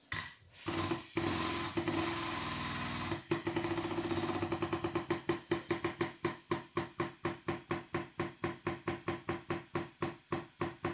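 The pull on a frame-bench dent-pulling chain and hydraulic ram being released: a sharp knock at the start, a steady rushing sound for about three seconds, then a long run of even mechanical clicks, about three or four a second, slowly spacing out.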